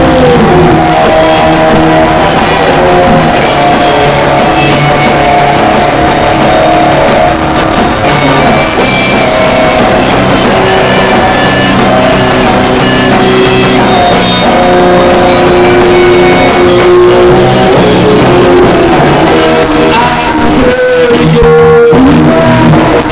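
A rock band playing loud, guitar-led music with a voice singing over it, held notes sliding in pitch now and then, as at a band rehearsal.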